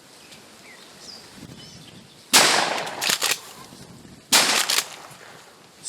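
Two shotgun shots about two seconds apart, each loud and sudden with an echoing tail, fired at a turkey.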